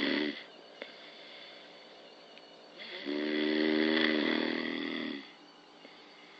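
Snoring: the tail of one snore at the very start, then after a pause of about two and a half seconds another long, pitched snore lasting a little over two seconds.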